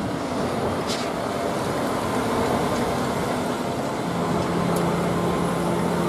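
Concrete mixer truck's diesel engine running steadily, with a low steady hum growing stronger about four seconds in.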